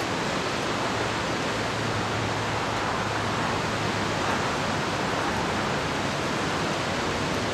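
Steady rush of strong, turbulent wind on the microphone, with a faint low hum underneath from the homemade wind turbine spinning fast.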